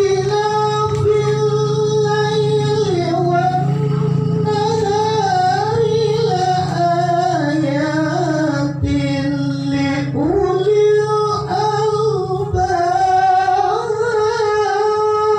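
Quran recitation (tilawah) by a male qori: one voice holding long, ornamented notes that glide up and down, dropping low near the middle and climbing back up. His voice is wrecked by a cough. A steady low hum runs underneath.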